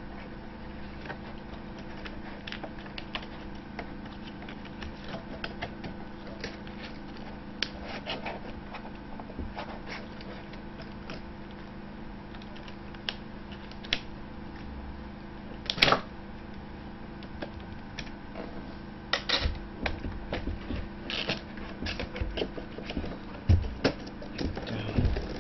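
Small clicks and taps of an HP 625 laptop keyboard being handled and fitted: its ribbon cable worked into the connector, then the keyboard laid in and pressed down into the chassis. One sharp snap a little past the middle and a run of clicks near the end, over a steady low hum.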